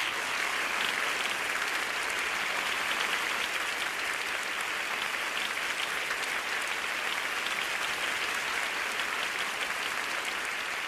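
Large theatre audience applauding, a dense, steady clapping of many hands.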